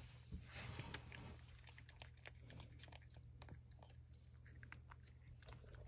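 Cat licking Churu puree treat from a small saucer: faint, quick, irregular wet clicks of tongue and mouth.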